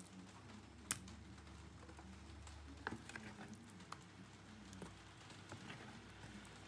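Faint scattered taps and clicks of hands handling raw chicken cutlets in a plastic tub of wet batter, with one sharper click about a second in and a few more around three seconds in.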